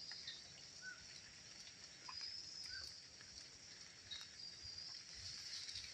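Faint steady high-pitched drone of insects, with a few brief faint chirps.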